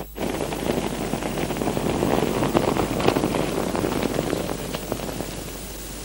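Rough rushing noise of wind on the camera microphone, crackling, easing into a steady hiss about five seconds in. A brief dropout at the very start.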